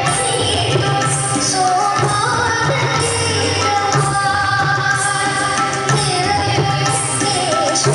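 Male vocalist singing an Indian song into a microphone over instrumental accompaniment.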